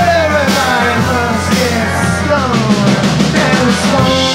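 Live rock band playing an instrumental passage between sung verses: electric guitars, electric bass and drum kit, with a lead part of long held notes that bend and slide downward.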